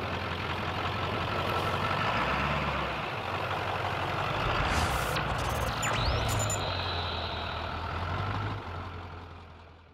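Lifted Ford pickup truck's engine running as the truck drives, with shifting low engine tones and a brief rising whoosh about six seconds in. It fades out near the end.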